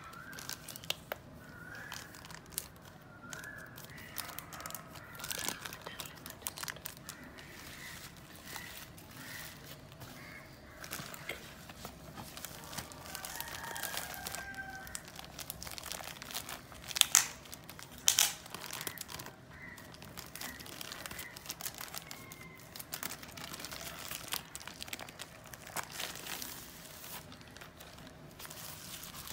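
Plastic packaging, bubble wrap and a thin plastic bag, crinkling and rustling as it is handled and pulled open, with two louder sharp crackles about two-thirds of the way through.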